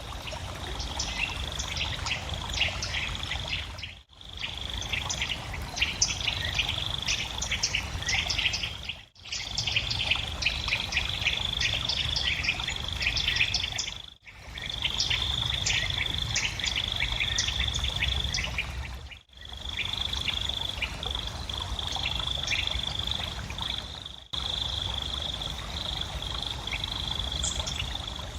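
Dense high-pitched chirping over a steady high tone, the same throughout, fading out and back in briefly about every five seconds.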